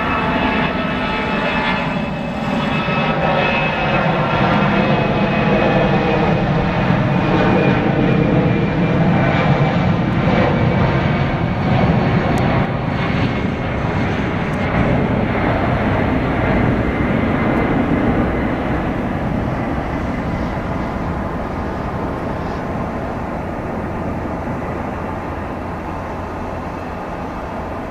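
Airbus A319-111's twin CFM56 turbofan engines at takeoff thrust during the takeoff roll: a heavy rumble with a high fan whine that glides in pitch as the jet goes past. It is loudest in the middle and fades steadily over the last few seconds as the airliner lifts off and climbs away.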